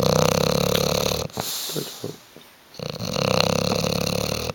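English bulldog snoring in its sleep: two long snores, the second starting about three seconds in.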